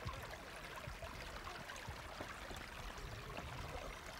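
A herd of goats moving along a dirt track: a faint, even shuffle with many small scattered ticks of hooves.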